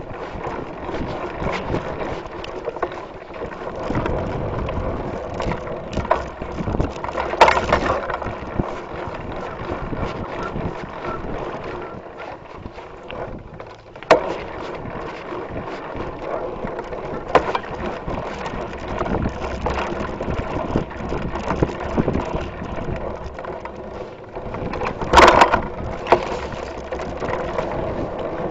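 Mountain bike ridden fast over a dirt trail, heard through a camera mounted on the handlebars: a continuous rattle and rumble from the tyres and frame, with sharper clacks over bumps, the loudest near the end.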